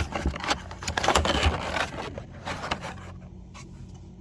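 Hands rummaging in a hair-dryer box's packaging: a run of scraping and rustling with sharp clicks for about three seconds, then quieter, sparser handling.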